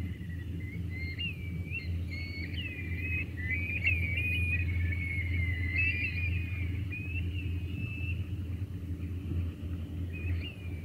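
A flock of sandpipers and plovers calling, many short high chirping notes overlapping, thickest in the middle and thinning out after about eight seconds, over a steady low rumble.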